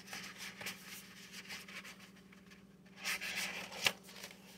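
Fingers rubbing and handling cardboard CD packaging: light scratchy rustling with small clicks, a louder rustle about three seconds in ending in one sharp click.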